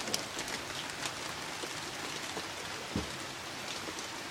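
Heavy rain falling, a steady hiss with scattered taps of drops landing close by, and one heavier drop hit about three seconds in.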